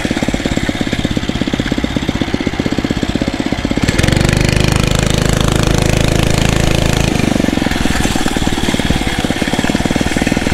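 Phatmoto Rover 79cc motorized bicycle engine running under way with a rapid, even firing beat. About four seconds in, the engine note rises and holds for some three seconds, then settles back to the earlier beat.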